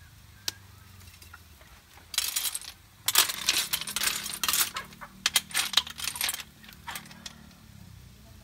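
Sikad-sikad sea snail shells clattering and clinking against each other and a metal wok as they are stirred with a ladle. A short burst about two seconds in, then a longer run of rapid clinks for about three seconds.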